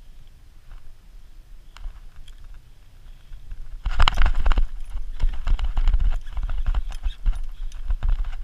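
Fishing reel clicking: sparse, quiet clicks at first, then from about four seconds in a fast, loud run of rattling clicks over a low rumble, as the rod bends under a hooked fish.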